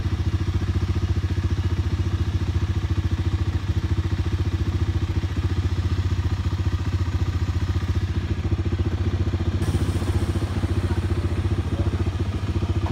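Small engine running steadily with a fast, even putter.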